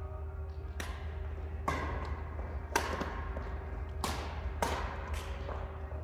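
Badminton rally: six sharp racket strikes on the shuttlecock, roughly one a second with a quicker pair near the end, over a steady low hum.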